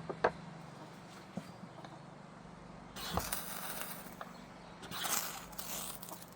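A 12% cobalt high-speed-steel striker scraped hard down a ferro rod, twice: two harsh scrapes about 3 and 5 seconds in, each lasting a second or so, throwing sparks onto fatwood shavings. A couple of sharp clicks come right at the start.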